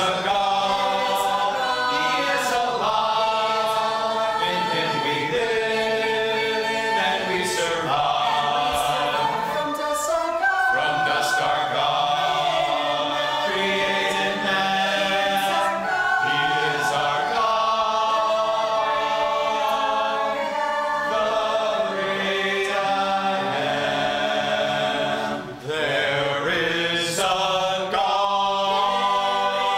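Church congregation singing a hymn together, unaccompanied voices in several parts, with a brief break between lines near the end.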